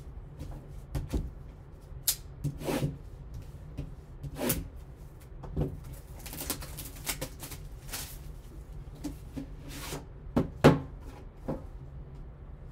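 Cardboard trading-card box handled and opened by gloved hands: scattered rustles, scrapes and light knocks of the box and lid, the sharpest knocks a little after ten seconds in, over a low steady hum.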